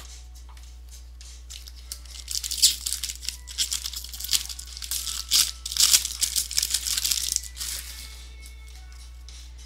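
Plastic baseball card pack wrapper being torn open and crinkled by hand, a run of crackling and rustling that starts about two seconds in and fades out near the end.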